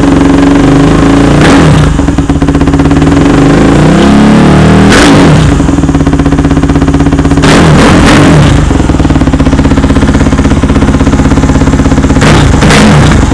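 Kawasaki KFX450R quad's single-cylinder four-stroke engine, fitted with a DASA full-system exhaust and a K&N intake, running loud and revved in about four sharp throttle blips between steadier running.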